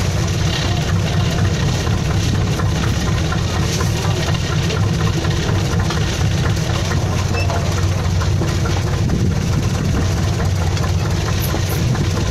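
Fishing boat's engine running steadily with a constant low hum.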